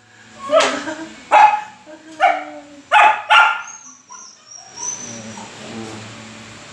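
A young dog barking five times in the first three and a half seconds, the last two barks close together, followed by a faint steady hum.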